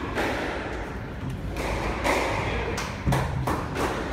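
A squash ball being struck and hitting the court walls: a series of sharp knocks with an echo, coming quicker near the end.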